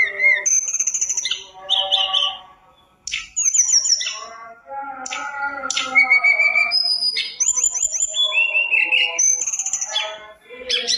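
Tledekan gunung songbird singing a loud, varied song of quick whistled phrases, gliding and trilled notes, with a short pause about three seconds in.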